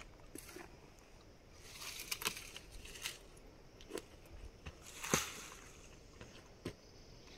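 A dead tree branch being handled and dragged, its twigs and dry needles rustling and snapping, with footsteps on rocky ground. Scattered crackles and knocks, the loudest about five seconds in.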